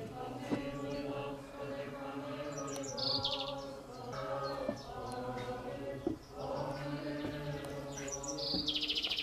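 Several voices singing a slow chant in long held notes, with brief breaks about four and six seconds in. Birds chirp in quick high trills about three seconds in and again near the end.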